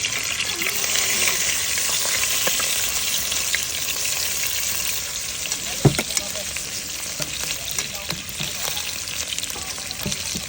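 Food sizzling steadily as it fries in a pan, with one sharp knock a little before the middle.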